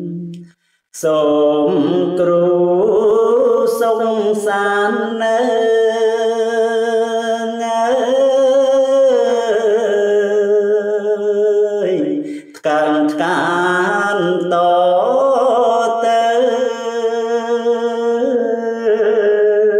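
A man chanting Khmer verse in the kakagati meter, in the lamenting pilap style, as a single voice of long drawn-out notes with a wavering pitch. He breaks off for breath just after the start and again about twelve seconds in.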